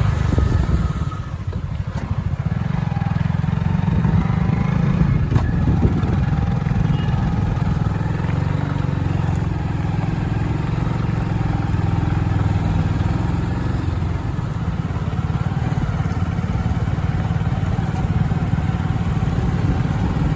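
Motorcycle engine running steadily as the bike rides along, a continuous low rumble that dips briefly about a second in.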